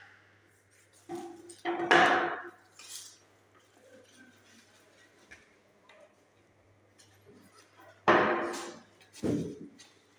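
Wooden cabinet panels knocking and clattering as they are handled and set down on a tiled floor: a loud cluster of knocks about two seconds in and another near the end, with quieter handling noise between.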